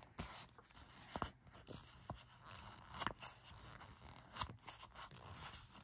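Paper sticker sheets being handled: soft scrapes and rustles with light taps and clicks scattered through.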